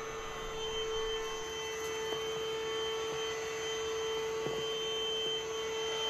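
Easine by iLife H55 cordless stick vacuum running with its motorized floor head: a steady whine over a soft rush of air, with a few faint ticks.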